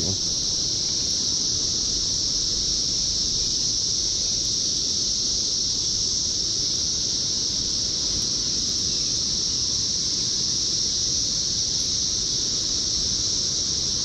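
Cicadas droning in a steady chorus, an even high-pitched hum, over a low steady rumble.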